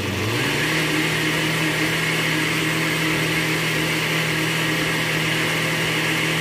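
Farberware countertop blender running, pureeing tomatoes, onion and garlic in chicken broth. Its motor hum steps up in pitch about half a second in as it speeds up, then holds steady.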